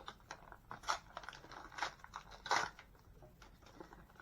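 Hands handling a small plastic doll and its packaging: irregular rustling and light clicks, the loudest burst about two and a half seconds in.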